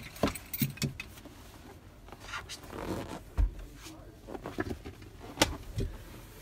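A hard-backed dinette back cushion being handled and turned around: a string of knocks and clicks, a low thump about three and a half seconds in, and a sharp knock near the end.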